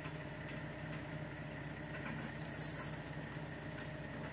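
Mobile crane's diesel engine running at a steady low hum while it holds a prefab cabin section on its hook. A brief, very high squeak comes a little under three seconds in.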